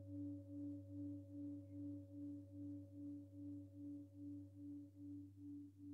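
Faint, sustained singing bowl tone that pulses about three times a second, with a higher overtone that fades out near the end, over a low steady hum.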